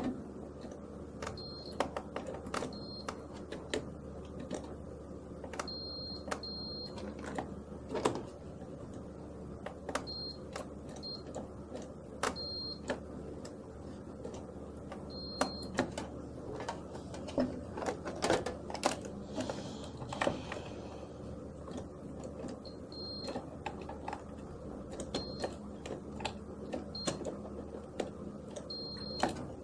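Clamp multimeter on continuity test giving short high beeps on and off, among sharp plastic clicks as motor contactors are pushed in by hand and probes touched to their terminals. Each beep marks a closed circuit through a contactor's contacts.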